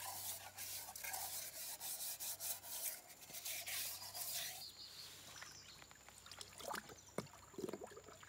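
A camp cup being scrubbed with grainy sand to scour ash and char off its outside: steady gritty scrubbing for about four and a half seconds, then only a few short, separate scrapes.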